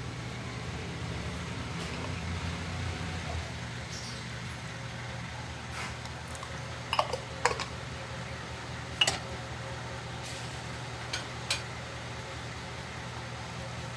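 A large pot of pasta water boiling on a stove: a steady low hum and hiss, broken by several short sharp clicks in the second half.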